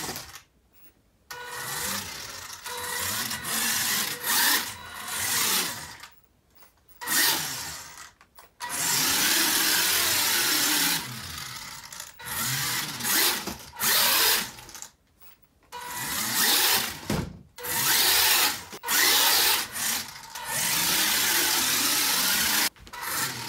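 Battery-powered 1:18 Carrera Profi RC Red Bull NX2 car driving on a laminate floor: its electric motor and gears whir in repeated throttle bursts, some short and some several seconds long, with brief silent gaps between them.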